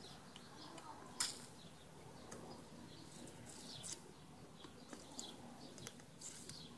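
Quiet background with faint, short bird chirps here and there and a few small clicks, the sharpest about a second in.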